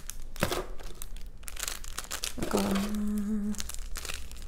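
Small plastic zip bags of nail rhinestones crinkling and rustling as they are handled, in quick irregular crackles. About halfway through, a person gives a short hummed 'mm'.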